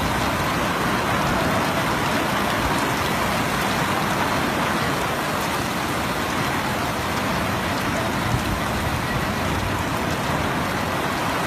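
Heavy rain falling, a steady hiss with no breaks.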